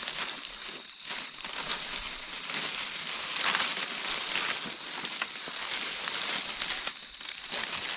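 Crackling rustle of dry leaves and grass being disturbed: a steady crackly hiss full of small ticks, a little louder in the middle.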